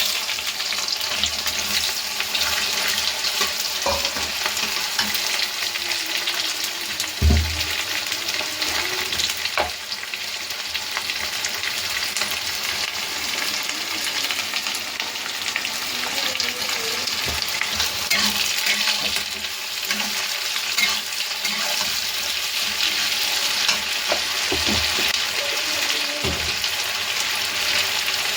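Food sizzling steadily as it fries in hot oil in a pan, stirred now and then, with scattered knocks of the spoon against the pan. The loudest knock comes about seven seconds in.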